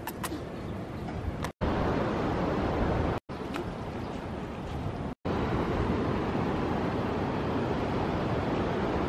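Steady rushing wind noise on the microphone, cut off briefly three times.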